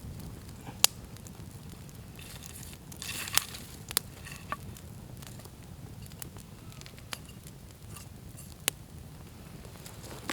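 Campfire crackling, with a handful of sharp pops standing out over a low steady hiss of the burning coals.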